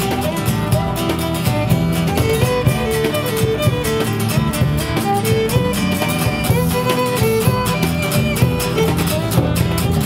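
A Celtic-Americana band playing an instrumental passage: a fiddle melody over strummed acoustic guitar, with a steady beat.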